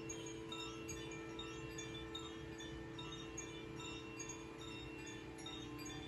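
Crystal singing bowls sounding two steady low tones, kept singing by a mallet worked in a bowl, while a hand-held cylinder wind chime tinkles bright, scattered high notes over them.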